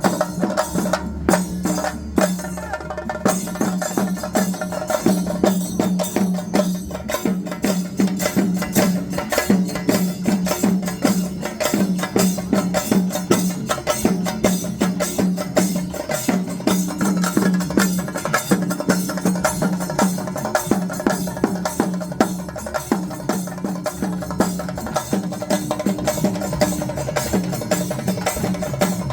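South Indian street music: fast, sharp drum strokes in a steady rhythm over a sustained droning pitched tone, without a break.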